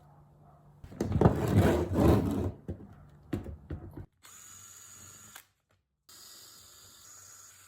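A tool working on the bolts of an electric skateboard, taking off the battery and enclosure: a loud burst of mechanical noise lasting about a second and a half, starting about a second in, followed by a couple of sharp clicks. About four seconds in the sound cuts to a faint steady hum.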